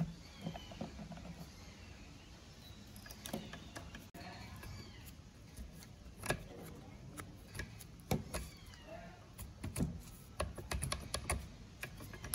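Rusty chainsaw being handled by gloved hands: the seized chain's links and the bar click and rattle, and the saw's body knocks against the table in scattered, irregular taps.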